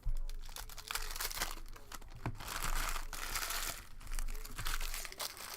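Trading-card packaging being crinkled and torn open: an irregular run of rustling and tearing of a wrapper.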